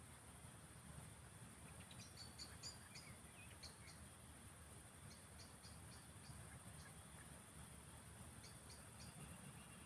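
Faint field ambience: a steady high-pitched insect drone with scattered runs of short, high chirps, over a low rumble.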